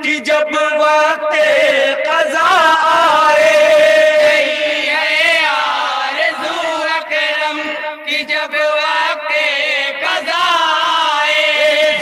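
Group of men singing a naat (Urdu devotional poem) together into a microphone, in long held, wavering notes.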